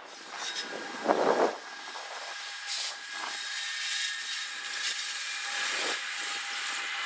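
NJ Transit ALP-46A electric locomotive and its coaches rolling past: a steady hiss of wheels on rail with a thin steady whine, and a short louder burst about a second in.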